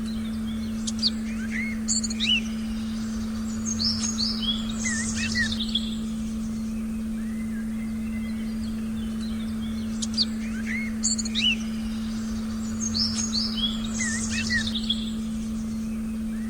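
Forest birds chirping and whistling in two bursts of calls over a steady, unchanging low meditation tone.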